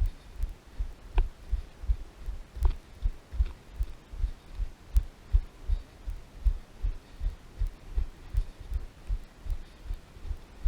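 Footsteps of a hiker walking on a trail: low thuds in a steady rhythm, a little over two a second, carried through a body-worn GoPro, with a few sharp clicks.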